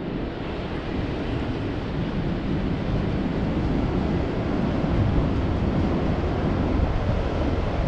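Freight train of open wagons rolling past across the station yard. It makes a steady low rumble, mixed with wind buffeting the microphone.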